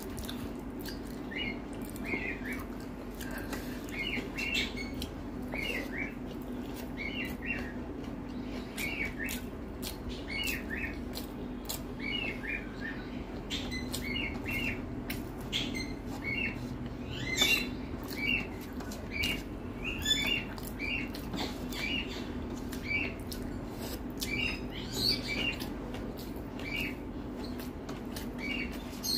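Close-up eating sounds: wet chewing and lip-smacking of a mouthful of rice and curry, with short clicks and squelches about twice a second as fingers mix rice on a steel plate. A steady low hum runs underneath.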